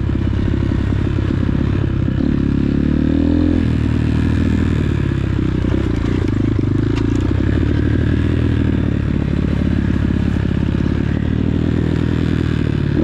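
X-Pro Titan 250cc single-cylinder four-stroke dirt bike engine running under way on a trail. The revs climb and drop back about two to three seconds in.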